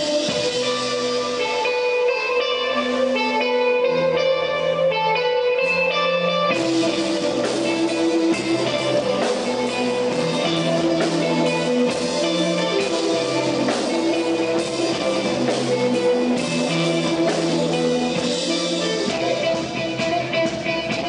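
Live band playing an instrumental passage: electric guitar notes over bass. About six and a half seconds in, the full band with drums comes in and the sound gets denser.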